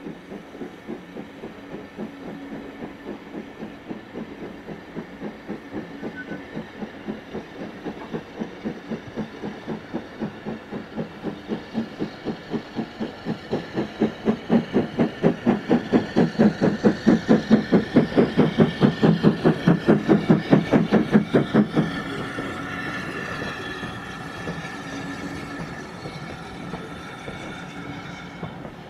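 Steam locomotive working hard, its exhaust beats coming about four a second and growing louder. About 22 seconds in the beats stop abruptly, leaving a steadier, quieter sound.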